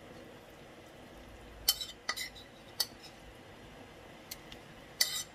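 A metal utensil knocking and clinking against a pot while minced pork is stirred in broth to break it up. The clinks are scattered and sharp, each with a short ring, with several in quick succession near the end.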